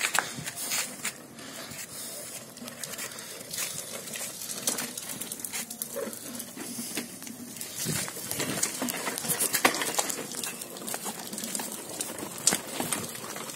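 Small plastic-wheeled tricycle rolling over rough paving, with irregular clicks, crackles and scuffs throughout.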